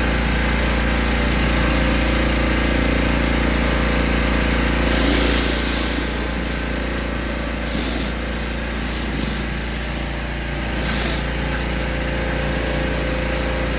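Westinghouse WPX3400 pressure washer's 212cc OHV gas engine running steadily, with a few stretches of hiss partway through.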